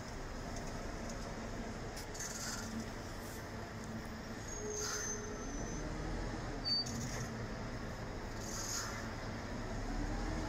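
Articulated Mercedes-Benz Citaro city bus running past close by and pulling away, its engine note rising and falling, with two short high squeaks around the middle.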